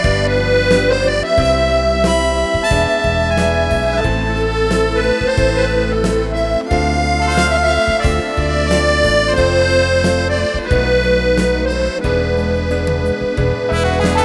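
Accordion playing a slow, legato melody of held notes over a steady left-hand bass-and-chord accompaniment.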